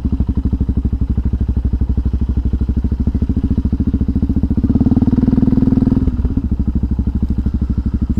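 Yamaha XT660R's single-cylinder four-stroke engine thumping steadily through an aftermarket LeoVince exhaust while riding. It opens up louder for about a second and a half past the middle, then eases back off the throttle.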